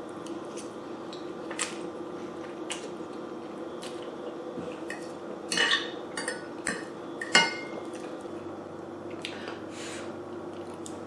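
Fork clinking and scraping against a plate while eating pasta, in scattered light clicks. Two louder clusters of clinks come a little past halfway and at about two-thirds through.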